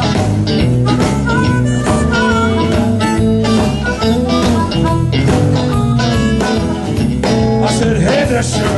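Blues band playing an instrumental passage: harmonica over guitar, bass and drums, with a steady beat.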